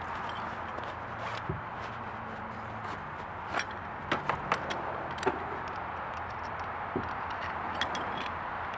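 Scattered light clinks and knocks of a galvanized folding grapnel anchor and its rope being pulled from a nylon bag and handled, over a steady background hiss.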